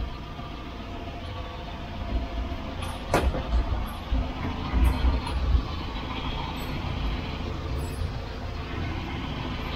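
Chevrolet big-block 454 V8 marine engine idling steadily in an open engine bay, its throttle cable not yet connected; a noisy, brand-new engine. There is one sharp knock about three seconds in.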